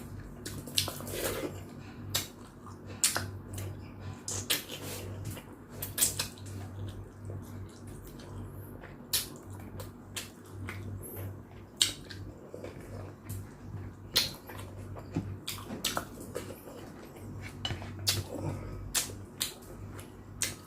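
Close-miked eating of chicken soup: irregular wet mouth clicks and smacks from chewing, with occasional light clinks of spoon on bowl, over a low steady hum.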